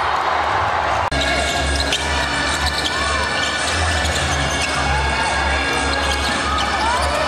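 Background music with a pulsing bass line laid over basketball game sound, a ball bouncing on the court. The sound drops out for an instant about a second in.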